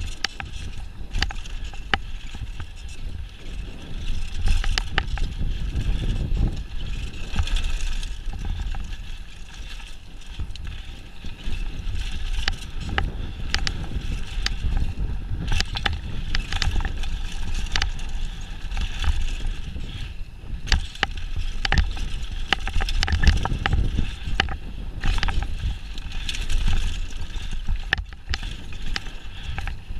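Mountain bike riding down a dirt trail, heard from a camera on the bike or rider: a steady low rumble of wind on the microphone and tyres rolling over dirt and stones, with frequent sharp clicks and rattles from the chain and frame over bumps.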